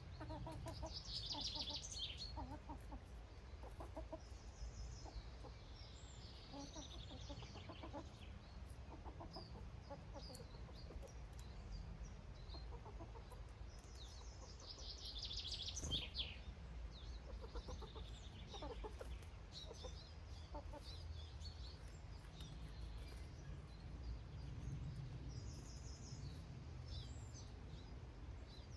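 Domestic hens clucking on and off, with small birds' short high chirps, loudest about a second in and again around the middle, over a steady low background rumble.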